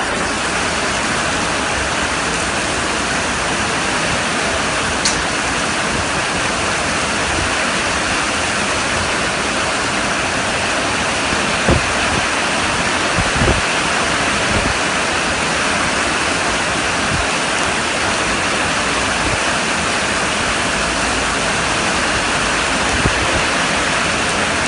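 Heavy rain pouring down in a steady, dense hiss, with a few brief knocks about halfway through.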